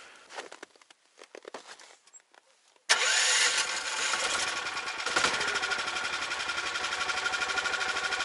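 Faint clicks, then about three seconds in the homemade SM-002 snowmobile's 20 hp Lifan single-cylinder engine comes in abruptly, running steadily at idle with a fast, even pulse.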